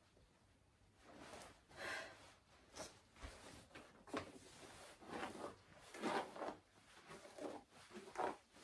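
Faint, scattered rustling and breathy sounds of a person moving about and handling clothing, in short soft bursts about a second apart.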